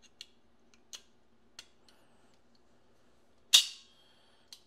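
Light clicks of a +5 magazine extension being slid onto a Hellcat Pro pistol magazine, then one sharp snap with a brief metallic ring as it goes on, and a last small click near the end.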